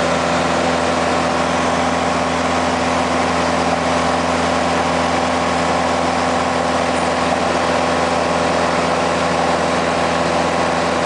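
Small private plane's engine and propeller running steadily at climb power after take-off, a loud, unchanging drone with a constant pitch, heard inside the cabin.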